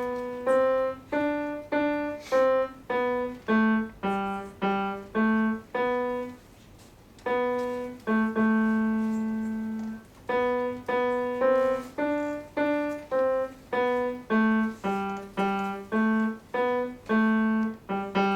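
Solo piano playing a simple melody one note at a time, about two notes a second, each note struck and left to ring. About six seconds in the tune pauses briefly and holds one long low note, then the same phrase is played again.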